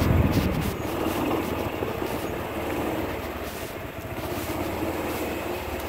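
A golf cart driving along: a steady low running noise with light rattling that slowly grows quieter.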